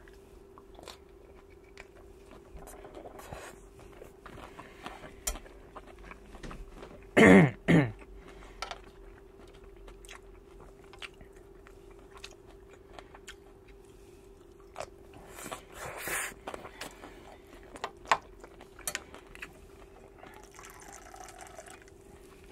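Close-miked eating: a man chewing salmon larb and rice, with many small mouth and utensil clicks over a faint steady hum. About seven seconds in come two short loud sounds, each sliding down in pitch, and around sixteen seconds a loud breathy sound.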